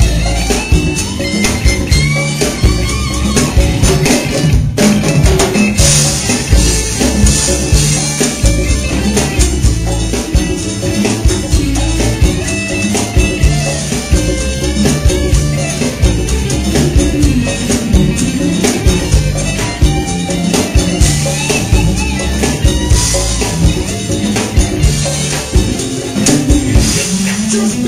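Live band playing loud Latin-flavoured rock, an instrumental passage with drum kit and hand percussion such as tambourine or shaker driving a busy beat.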